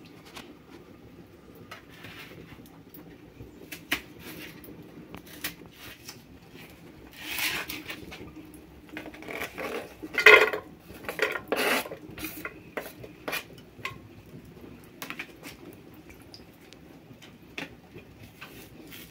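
Kitchen dishes and utensils being handled: scattered clinks and knocks, with a few louder clatters about 7, 10 and 12 seconds in.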